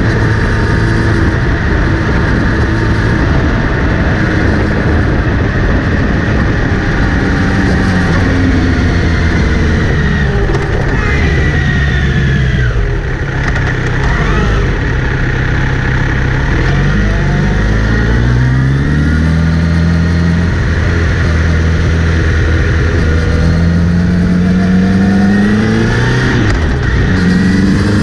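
Kawasaki Z900RS inline-four motorcycle running and accelerating, its engine note rising several times and dropping back in between. A steady haze of noise lies under it. It is the owner's bike with a whirring that appears when accelerating or in gear, which he traces to the front sprocket area.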